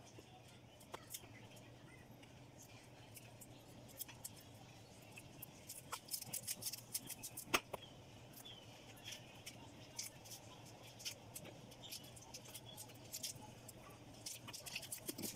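Light, irregular clicks and taps of a kitchen knife and fingers working through chopped spinach leaves on a plate, with a faint steady low hum underneath.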